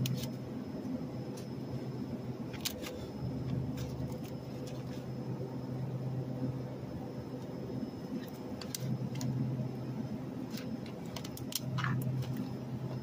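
Steady low hum of a supermarket's refrigerated meat case and store background, swelling and fading in stretches. Scattered light clicks and crinkles come from plastic-wrapped chicken trays being handled.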